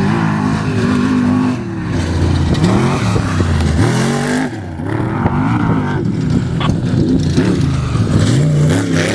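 Off-road race vehicle engine revving hard, its pitch climbing and dropping again and again as the throttle is worked.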